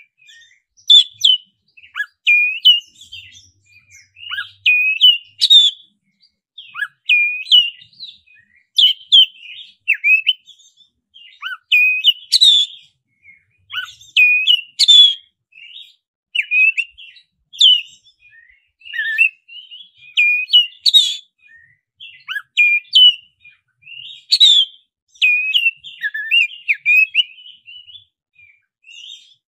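Black-breasted oriental magpie-robin (kacer dada hitam) singing a loud, varied song of short whistled phrases with sharp rising and falling notes, a new phrase every second or so.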